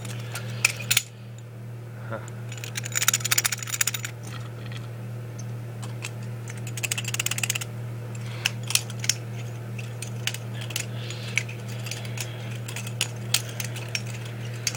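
Two butterfly knives being flipped open and closed at once, their metal handles and blades clicking and clattering against each other in quick rattling runs and single sharp clicks.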